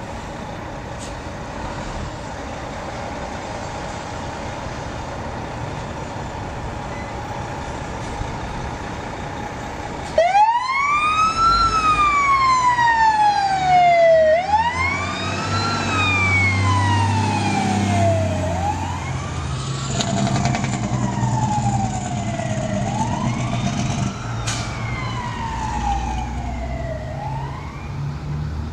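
A truck engine runs steadily for about ten seconds, then a fire engine's siren comes on in a wail, rising quickly and falling more slowly about every four seconds, over the engine's rumble as the truck pulls out.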